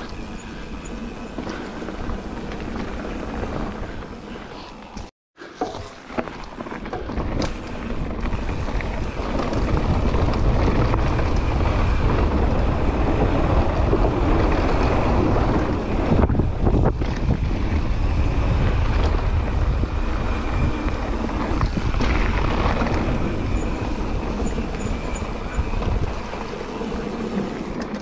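Mountain bike descending a trail at speed: wind rushing over the camera microphone, with tyres rolling and the bike rattling over the ground. A brief gap about five seconds in, then louder and rumbling from about ten seconds in until near the end.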